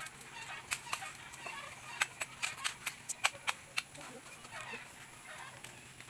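A rapid run of sharp cracks and snaps of bamboo twigs and dry leaves as a cut bamboo pole is pulled out through a bamboo clump. The cracks stop about four seconds in, leaving softer rustling.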